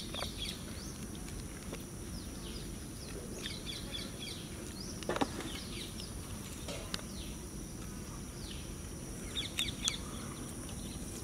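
Birds chirping in short, scattered calls over a steady outdoor background, with a faint high steady whine throughout. One sharp click about five seconds in.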